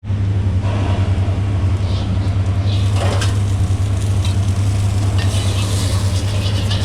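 Steady low hum, loud and unchanging, with faint scattered clinks and knocks over it.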